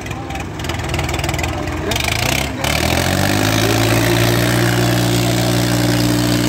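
Diesel tractor engines working hard as a Swaraj 855 FE and a John Deere pull against each other, hitched back to back in a tug-of-war. About three seconds in the engine note climbs, then holds steady and louder.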